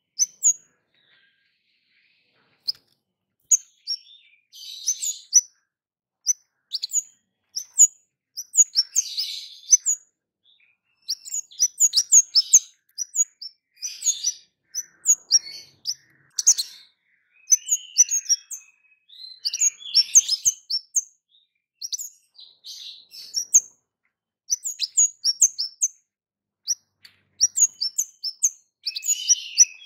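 Orange-headed thrush (kemade) calling in its 'cit keres' style: fast runs of short, sharp, high chips mixed with rougher, harsher notes, in bouts broken by brief pauses.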